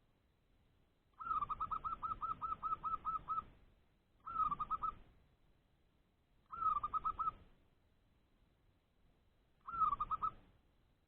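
Zebra dove calling its rapid cooing challenge call, a territorial call to rival doves. It gives one long run of about a dozen quick notes, then three short phrases, each a longer first note followed by a few quick ones.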